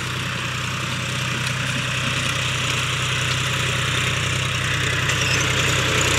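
John Deere 5050D tractor's three-cylinder diesel engine running steadily under load while it pulls a disc harrow through the soil, growing gradually louder as the tractor comes closer.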